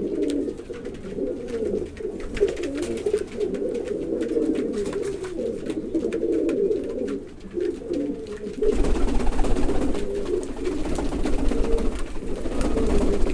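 A flock of pouter pigeons cooing together, a dense overlapping chorus of low coos, with scattered small clicks. About two-thirds of the way in, a loud rushing noise with a low rumble comes in over the cooing and lasts almost to the end.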